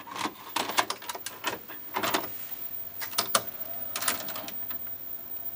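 A Panasonic video cassette recorder being handled: an irregular run of mechanical clicks and clunks, some ringing briefly.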